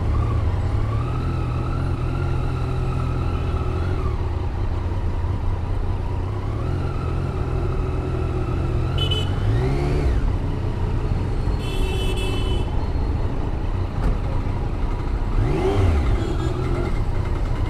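Yamaha MT-09's 850cc three-cylinder engine running steadily at low revs, with a short blip of the throttle just before halfway and another near the end. Brief horn toots sound twice in the middle.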